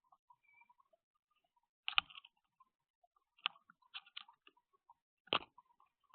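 Small birds tapping and pecking at a nut feeder: about five sharp, irregular clicks, the loudest about two seconds in.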